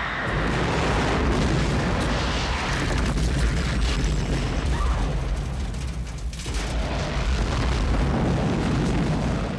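Film sound effect of a huge fireball explosion in a road tunnel: a long, deep, loud rumbling blast that rolls on for several seconds and dies away near the end.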